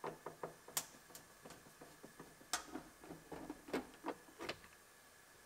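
Faint, irregular clicks and taps of hand tools and plastic trim as a truck's sun visor is unfastened from the roof, with a couple of sharper clicks about a second in and halfway through.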